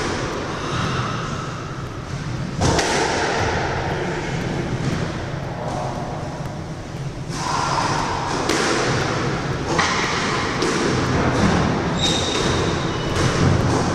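Squash rally: the ball cracking off rackets and thudding against the court walls in quick, irregular strikes.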